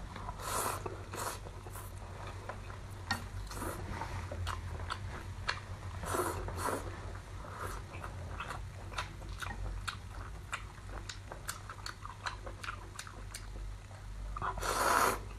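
Close-up eating sounds of spicy instant noodles: wet chewing with many small mouth clicks and smacks, broken by noisy slurps of noodles, the loudest near the end.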